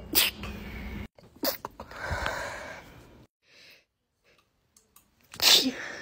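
A young woman sneezing several times in separate sharp bursts, with the loudest sneeze near the end.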